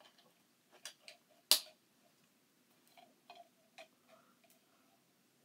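A spoon clicking and scraping against the inside of a metal can, a scatter of sharp clicks with the loudest about a second and a half in and another few near the middle.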